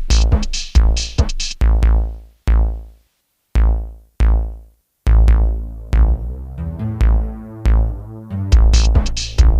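Electronic background music built on a drum-machine beat. A little way in the beat thins to a few lone deep bass-drum hits with silence between them, then a synthesizer line comes back in and the full beat returns near the end.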